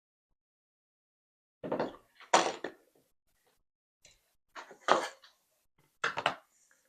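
Metal lock parts and tools clinking and clattering against a hard surface in three short bouts, as the picked ABUS Magtec lock is handled to be taken apart.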